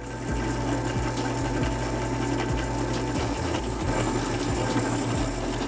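Drill press running steadily, a constant motor hum with a faint whine.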